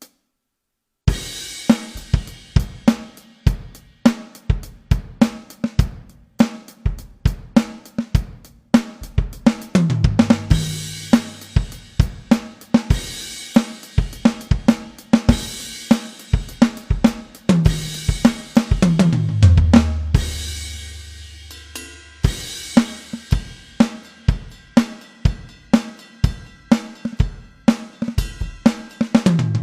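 Drum-kit sounds from a 2box electronic drum module, triggered from a home-made 3D-printed drum pad set: a steady beat of kick, snare, hi-hat and cymbals starting about a second in, with fills stepping down the toms about a third of the way through, again about two-thirds in, and near the end.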